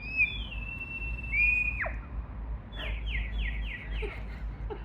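A bird's whistled call: a long, high, level whistle that drops sharply in pitch just under two seconds in, then a quick run of about five short, falling notes.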